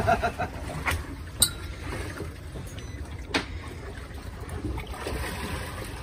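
Steady wind and sea noise aboard a small boat on open water, with three sharp clicks about one, one and a half and three and a half seconds in.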